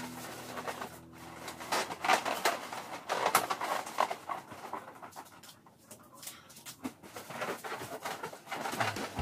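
Latex balloons squeaking and rustling in irregular bursts as they are rubbed and pressed together by hand.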